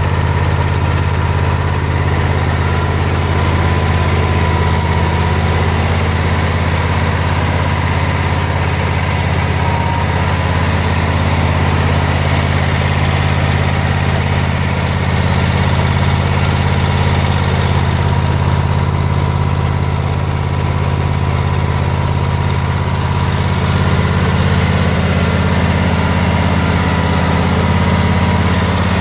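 Kohler engine of an Exmark Turf Tracer walk-behind commercial mower running steadily at an even speed, with a deep, unchanging hum.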